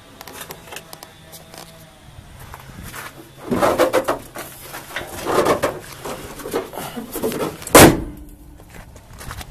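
Metal clattering and rattling as the hood of a 1979 Ford fire truck is handled and lowered, then one loud slam just before the end as it shuts.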